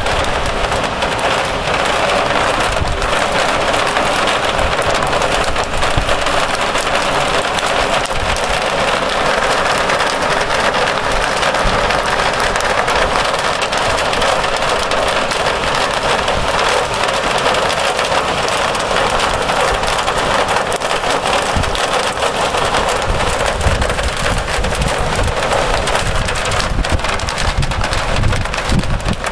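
Heavy downpour with hail: a dense, steady hiss of rain full of small impacts as drops and hailstones strike the window ledge.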